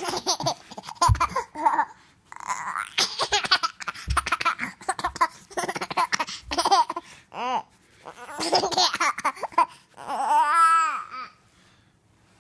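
A baby laughing in repeated short bursts with babbling, ending in one long wavering squeal of laughter about ten seconds in.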